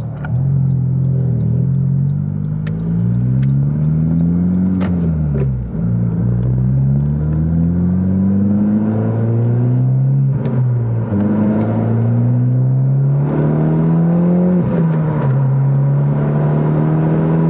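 2021 Honda Civic Type R's turbocharged 2.0-litre four-cylinder accelerating hard, heard from the cabin. The engine note climbs in pitch, drops at each upshift (several times), then settles to a steady cruise near the end. The car runs a Hondata base tune with an aftermarket intake, front pipe and Invidia Gemini R400 exhaust, and short sharp clicks come at some of the shifts.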